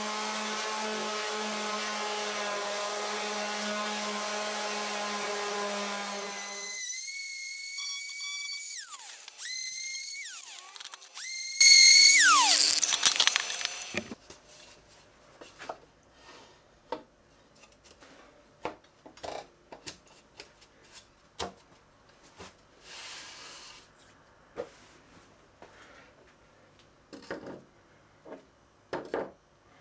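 Handheld electric orbital sander running steadily on a plywood plate. About seven seconds in it is switched off and whines down, then briefly spins up and winds down again a few times, loudest about twelve seconds in. After that come scattered light knocks and clicks as the plywood shelf and tool holders are fitted on wall rails.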